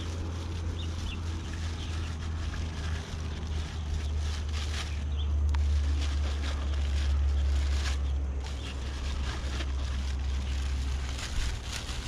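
A steady low rumble that swells through the middle and drops back near the end, with light rustling over it.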